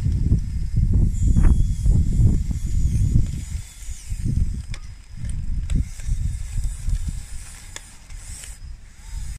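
Radio-controlled model dozer on 3D-printed plastic tracks pushing soil against a rock: an uneven low rumbling and crunching, with scattered sharp clicks. The rumbling fades off in the second half.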